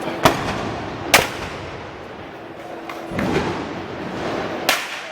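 Three sharp bangs, the second about a second after the first and the third near the end, over a continuous crowd murmur.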